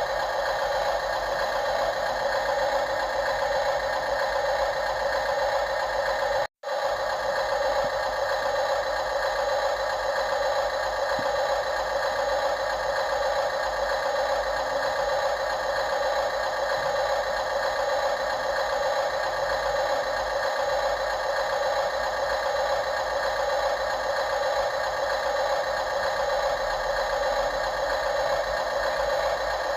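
Steady whirring and rattling of radio-controlled model construction machinery, its small motors and gears running continuously. It cuts out for an instant about six seconds in.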